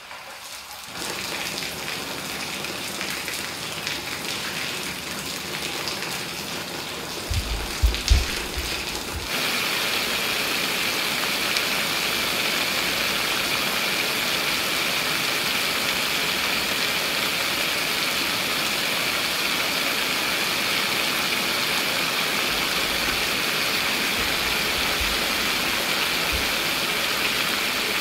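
Fountain jets switching on about a second in and spraying and pattering onto the ground, with a few low thumps just before a sudden change to a louder, steady rush of a water curtain falling in a sheet.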